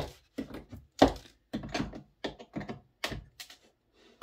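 Irregular clicks, taps and knocks of small hand tools, track nails and model railway track being handled on a wooden baseboard, the sharpest knocks at the start and about a second in.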